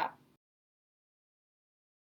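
A woman's narrating voice ends a word right at the start, followed by dead digital silence.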